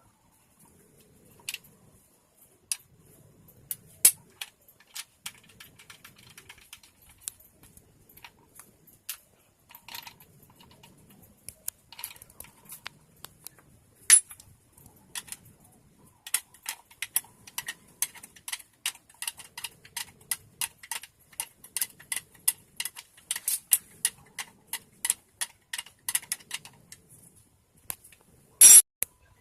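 A series of sharp clicks and taps, scattered at first, then a quick run of about three a second from about halfway, with one louder clatter near the end.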